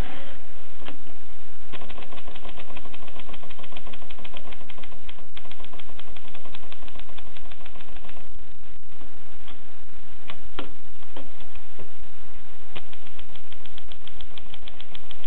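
Groma Kolibri manual typewriter being operated: a fast, evenly spaced run of key and typebar clacks for several seconds, then slower scattered strikes, then another fast run near the end.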